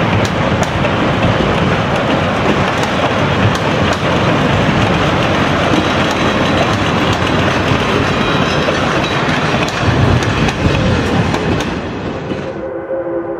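Passenger coaches and a caboose rolling past, steel wheels clattering over rail joints in a steady clickety-clack. Near the end the sound drops and a distant steam whistle holds a steady chord.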